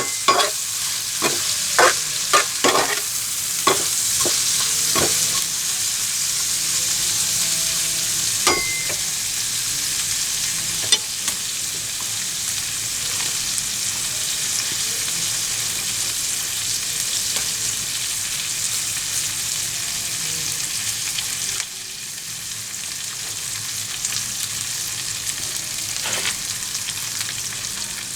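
Food sizzling in a hot pan with a steady hiss, a utensil clinking against the pan several times in the first few seconds. The sizzle drops a little in loudness about 22 seconds in.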